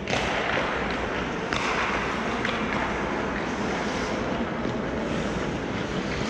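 Rink noise during a hockey game: a steady rushing hiss with sharp knocks near the start, about a second and a half in, and about two and a half seconds in.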